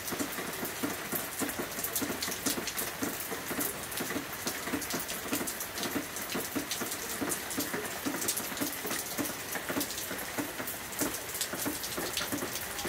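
Heavy rain, with hail giving way to it, coming down fast onto a concrete patio and a dirt yard. It makes a dense, even spatter of countless small hits.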